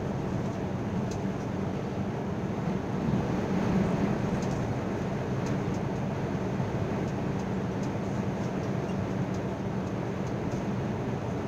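Cab noise of a milk tanker truck at highway speed: a steady engine drone with tyre and road noise, swelling slightly about three to four seconds in as an oncoming vehicle goes by.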